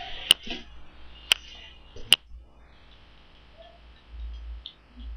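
Three sharp computer-mouse clicks about a second apart, followed by a quiet stretch with a faint low rumble.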